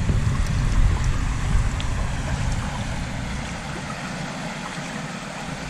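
River water rushing around a person wading in waders, with a low rumble that eases off about halfway through.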